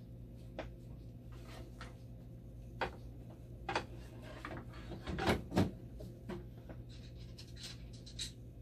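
A dialysis machine's blood pump module being slid into its slot in the machine's front panel and pushed into place: a series of plastic clicks and knocks, the two loudest close together about five seconds in. A steady low hum runs underneath.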